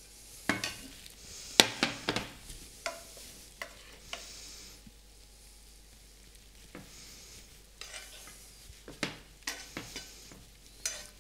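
A kitchen utensil scraping and knocking against a nonstick frying pan as creamed Savoy cabbage is scraped out into a ceramic bowl, with a faint hiss from the hot pan now and then. The scrapes come in a cluster in the first couple of seconds, then a lull, then more near the end.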